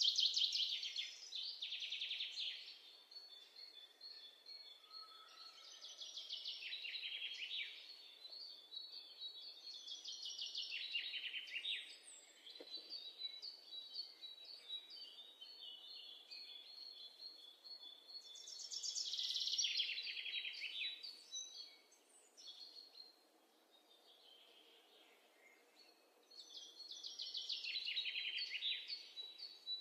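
A small songbird singing: five high, rapidly trilled phrases of two to three seconds each, with quieter chirps between them.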